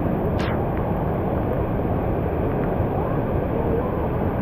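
Steady, loud rush of falling or fast-flowing water, with one brief sharp click about half a second in.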